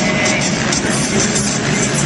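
Music with the loud, steady noise of monster truck engines running beneath it.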